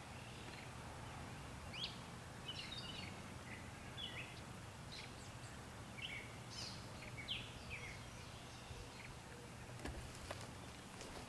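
Birds chirping: a scattering of short high calls over a steady low hum, thinning out after the first two-thirds, with a few faint clicks near the end.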